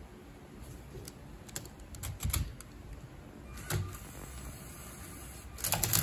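LEGO Mindstorms Robot Inventor Rubik's cube robot at work: its motors and plastic arms click and clatter in short separate bursts as it handles and turns the cube. The loudest clatter comes near the end.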